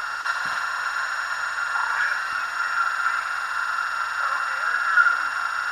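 Receiver audio from a Bitx40 40-metre SSB transceiver tuned to 7.240 MHz lower sideband: a steady hiss of band noise squeezed into the narrow voice passband of its crystal filter, with no clear voice on frequency.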